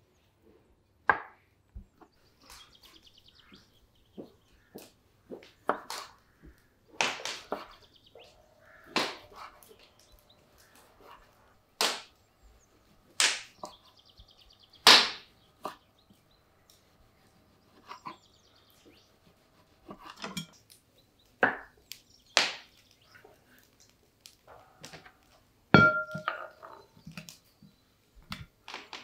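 Kitchen knife slicing raw potatoes and tomatoes, the tomato cuts on a wooden chopping board: irregular sharp cuts and taps about one to two seconds apart.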